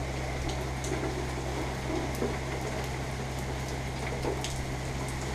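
Steady rain falling, with a few sharp drip ticks and a steady low hum underneath.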